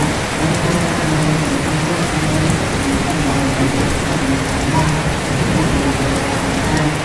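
Steady rain falling on a surface, a dense even hiss. Underneath, a low voice chants shalawat faintly in long held notes.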